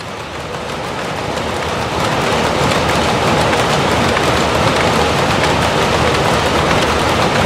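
Dense, steady clatter of many power looms running together in a cotton weaving shed, fading in over the first two seconds and then holding loud.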